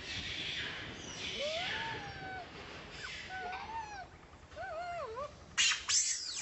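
Baby long-tailed macaque crying in distress: a hoarse cry, then several short wavering calls that rise and fall in pitch, and two loud shrill shrieks near the end. A hungry infant crying for milk.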